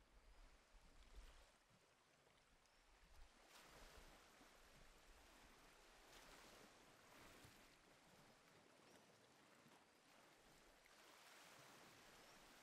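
Near silence: a faint, even background hiss that swells and fades gently now and then.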